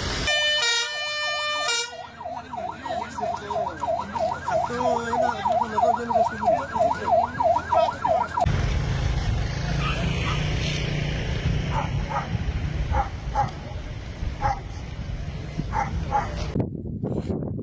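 Emergency vehicle siren sounding a fast yelp, its pitch rising and falling about four to five times a second; it stops about eight seconds in, leaving a low rumble with scattered sharp cracks.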